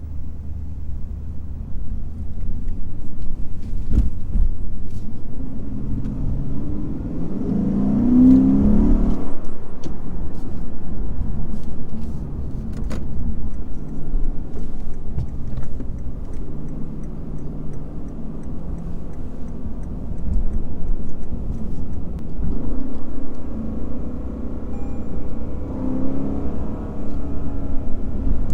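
A Lexus IS500 F Sport Performance's 5.0-litre naturally aspirated V8 driving along. It rises in pitch and grows louder under acceleration a few seconds in, settles into steady cruising, and pulls up again near the end. A few sharp knocks are heard along the way.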